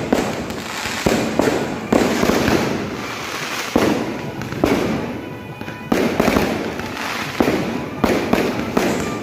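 Festival fireworks display going off non-stop: a rapid string of loud firework bangs, about one a second and sometimes two close together, each trailing off into crackle and echo.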